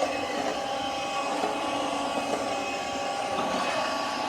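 Shark cordless vacuum cleaner running steadily in its hardwood/tile floor mode: an even motor whine with a few faint steady tones over the rush of air.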